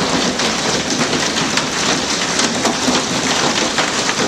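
Hail mixed with rain pelting a glassed-in atrium: a loud, steady clatter of many sharp pops and ticks over a rushing hiss.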